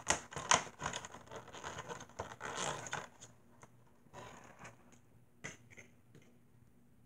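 Thin plastic blind-bag packaging crinkling and tearing as it is pulled open by hand: a dense run of crackles for about three seconds, then a few scattered faint rustles and clicks.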